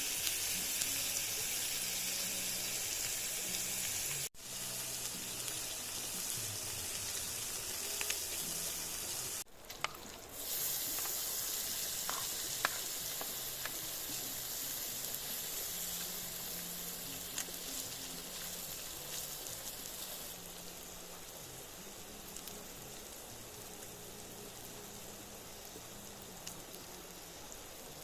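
Food sizzling as it fries in a pan, a steady crackling hiss that cuts out abruptly twice and grows a little quieter later on.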